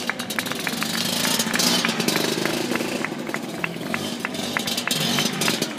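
Motor scooter engine running at varying revs while the rider holds a wheelie, getting louder about two seconds in.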